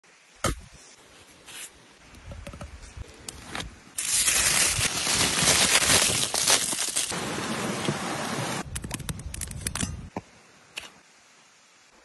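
Aluminium foil crinkling as a crumpled foil package is handled in the hands, loud and dense for a few seconds, then breaking into scattered crackles before stopping. A sharp click and a few soft rustles come before it.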